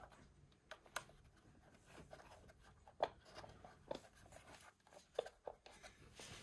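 Faint handling noises of the plastic timing-belt cover and fittings on a Citroën BX engine being worked into place by hand: about half a dozen small clicks and taps with soft rubbing between them, the sharpest click about three seconds in.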